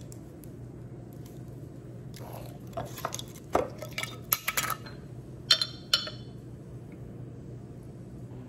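Glass mason jar and its metal screw lid being handled: a run of taps and clinks, two of them ringing briefly past the middle, over a low steady hum.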